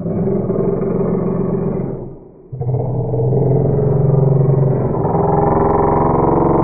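A loud horn honking in two long blasts: one of about two seconds, then, after a short break, a longer one whose pitch wavers in its second half.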